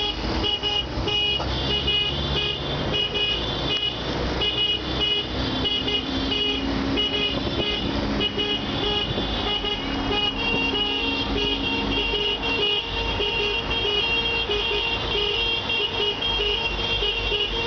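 Many car horns honking at once in a protest, long overlapping blasts with short toots and breaks between them, over the noise of traffic.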